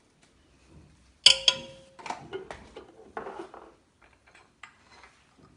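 A large aluminium cooking pot is struck once by a metal utensil about a second in and rings briefly. Lighter knocks and taps of kitchen utensils follow.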